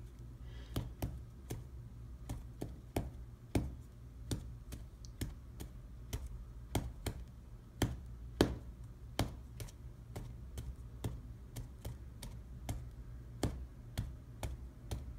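A small white plastic cup tapped repeatedly against a piece of cake and the tabletop, making light clicks about two to three times a second. A low steady hum runs underneath.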